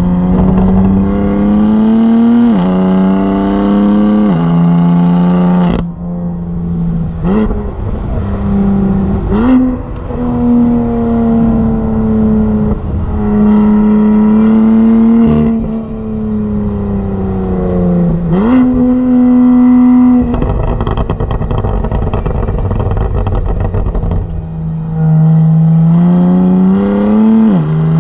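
BMW M4 F82 fitted with an equal-length Active Autowerke exhaust: its twin-turbo straight-six pulls hard through the gears. The exhaust note climbs in pitch and drops sharply at each upshift, with a steadier stretch of part-throttle running in the middle. It is heard first near the tailpipes, then from inside the cabin.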